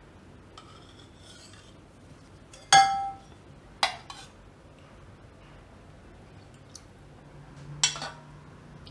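Stainless steel ladle scraping in a steel pot of syrup and clinking against the pot and a stainless steel serving dish. There is a faint scrape about a second in, then sharp metallic clinks that ring briefly: one loud clink about three seconds in, a lighter pair a second later, and another near the end.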